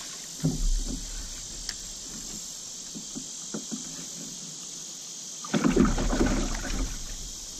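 Steady high drone of insects with a few light knocks. About five and a half seconds in, a louder rumbling, rustling noise lasts for nearly two seconds.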